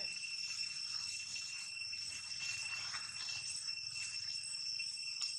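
Insects droning in a steady high-pitched chorus that holds unbroken, with no clear calls standing out.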